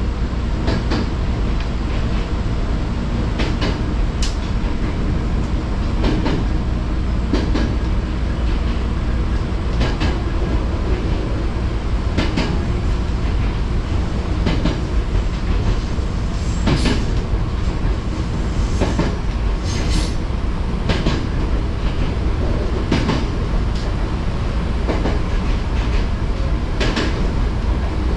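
Train running along the track, heard from inside: a steady low rumble with irregular clicks and knocks from the wheels passing over rail joints.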